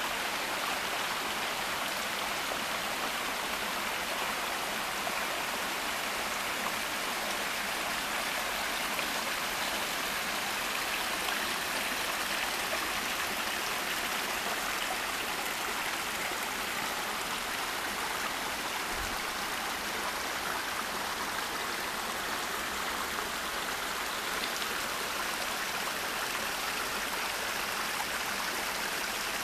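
Small forest creek running, a steady, unchanging sound of flowing water.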